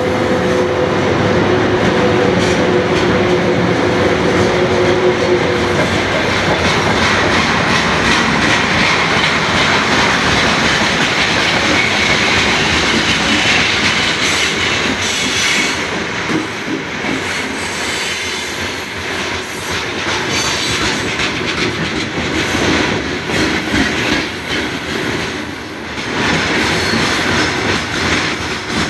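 Freight train behind a VL80S electric locomotive rolling slowly past, its wagons' wheels clattering over rail joints and the rails creaking and squealing under the load. A steady squeal sounds for the first few seconds, and a higher one about halfway through.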